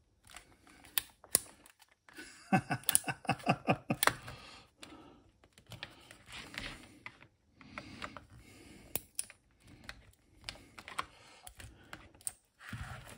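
A screwdriver turns screws in a Commodore VIC-20 power supply's plastic case, giving scattered sharp clicks and creaks, with a quick run of creaking squeaks about two and a half seconds in. The owner takes the sound for the plastic screw posts inside breaking off.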